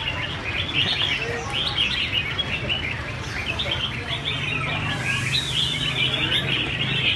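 Caged red-whiskered bulbuls chirping and calling, several birds at once in a busy, overlapping chatter, over a low steady hum.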